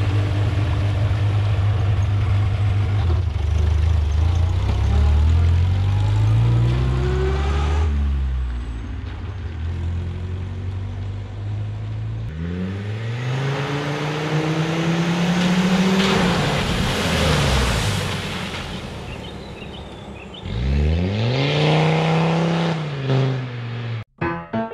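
Cars driving past one after another, their engine notes rising in pitch as they accelerate through the gears and then falling away, three passes in all. Piano music starts near the end.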